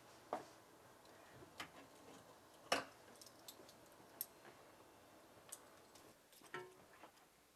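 Footsteps and small knocks and clicks as a person moves about a quiet room and handles things. About half a dozen separate knocks, the loudest about a third of the way in.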